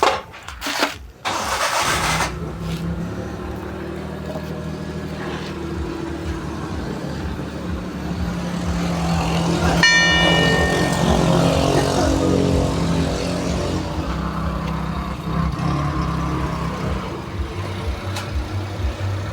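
An engine is cranked and catches about two seconds in, then runs steadily at idle. A short high tone sounds once near the middle.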